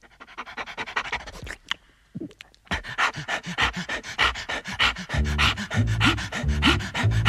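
A large dog panting quickly and evenly, short rhythmic breaths in and out, with a brief break about two seconds in. About five seconds in, music with a bass line and sliding notes starts under the panting.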